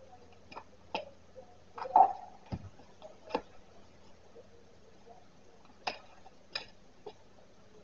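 A utility knife slitting open a padded paper mailer: scattered sharp clicks and taps with a brief crinkle of the envelope, the loudest about two seconds in, followed by a low knock and a few more clicks later.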